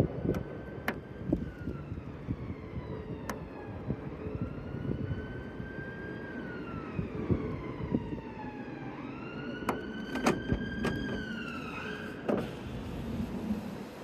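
Emergency vehicle siren wailing, slowly rising and falling in pitch over steady street noise, then stopping shortly before the end. A few sharp clicks sound over it.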